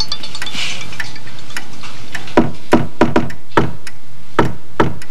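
Knocking on a wooden front door: a quick run of four raps about halfway in, then three more spaced-out knocks.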